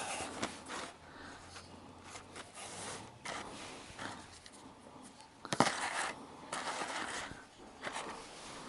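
Faint handling noise: scattered light clicks and rustles, with one sharper click about five and a half seconds in.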